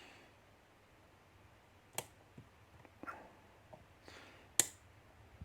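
A few faint, sparse clicks of a flat-flag dimple pick and tension tool working the pins of a dimple lock, the sharpest about two seconds and four and a half seconds in, as pins are set toward a deep false set.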